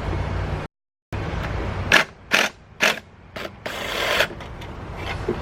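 Metal tool work on a lawn mower's bolts: a few short sharp clanks and scrapes from about two seconds in, then a longer scrape about four seconds in, as a bolt is worked out of the mower's starter housing. The first second holds a steady low rumble.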